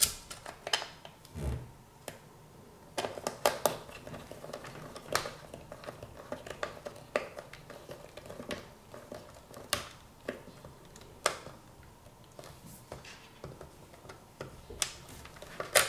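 Small screwdriver driving screws into the Xbox One X's metal shield plate, with scattered light clicks and taps of metal on metal, a few of them sharper.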